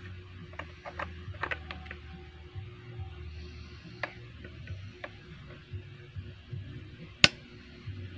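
Small metal clicks and taps of an Allen key and oil-pump parts against a STIHL mini chainsaw's housing as the chain-oil pump is refitted. The clicks bunch up about a second and a half in, with one sharp, much louder click near the end, over a steady low hum.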